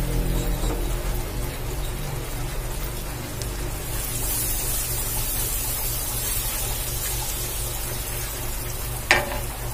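Margarine melting and sizzling in an aluminium wok as it is stirred with a wooden spatula, a steady rain-like crackle that gets brighter and hissier about four seconds in. A single sharp knock near the end, with a low steady hum underneath.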